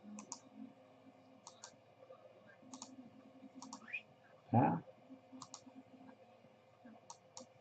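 Computer mouse clicks: scattered quick press-and-release pairs, about one every second or so at irregular spacing, against a quiet room.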